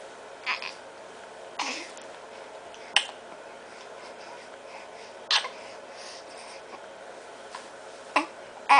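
Six-week-old baby hiccuping: about six short, sharp hics at irregular intervals of one to two and a half seconds, the last two close together near the end.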